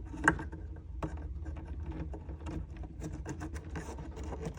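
Wiring-harness connectors being handled and fitted onto a pinball rectifier board's header pins: rubbing, scraping and small clicks, with one sharper click about a third of a second in. A low steady hum runs underneath.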